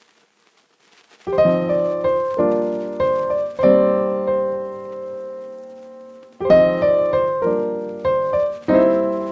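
Background music on piano or electric piano: after about a second of near quiet, a run of struck chords, one long held chord in the middle, then more chords.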